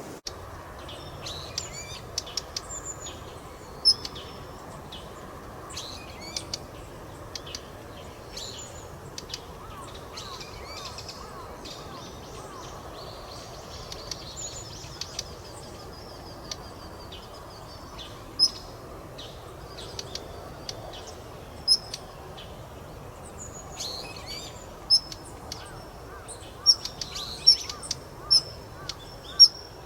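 Daurian redstart calling: a scattered series of short, high thin notes mixed with dry, sharp clicks. Near the end it gives a quicker run of high notes, about two a second, over a steady background hiss.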